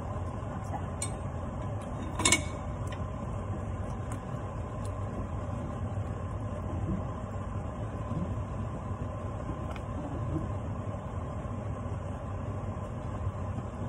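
Wooden spoon stirring thick lentil curry in a metal saucepan over a steady low kitchen hum, with a few faint knocks. One sharp metallic clink about two seconds in, a metal spoon set down on the cookware.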